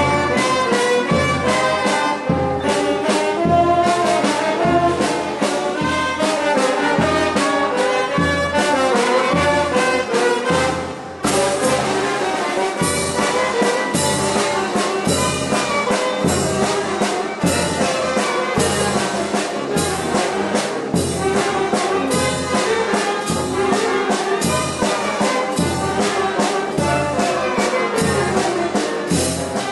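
A youth wind band playing a lively piece. Sousaphone, saxophones and brass carry the tune over a steady beat on bass drum, cymbals and timbales. The music dips briefly about eleven seconds in and comes back with a cymbal crash.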